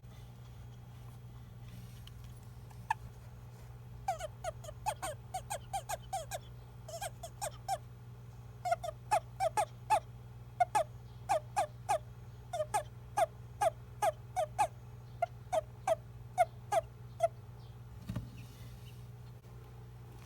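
Male toad giving its release call, the chirp a male gives when grabbed, as if saying 'I'm a male'. It makes quick runs of short, cute little chirps, several a second, starting about four seconds in and stopping a few seconds before the end, over a steady low hum.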